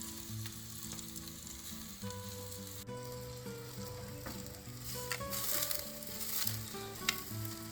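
Food sizzling and crackling as it cooks, a steady hiss with scattered pops, under soft background music.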